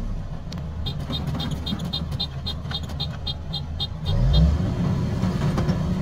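Kubota DC-150X combine harvester's diesel engine running steadily while it cuts rice, revving up about four seconds in. A rapid, even series of high chirps, about four a second, sounds from about one second in until the rev.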